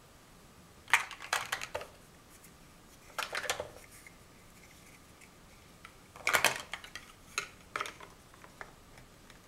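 Large plastic Mega Bloks First Builders blocks clacking together as they are handled and snapped onto the build: three short spells of clatter, about one, three and six seconds in, then a couple of single clicks.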